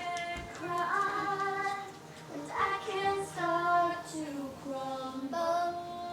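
Singing: a high voice sings a melody in long held notes that slide from one pitch to the next.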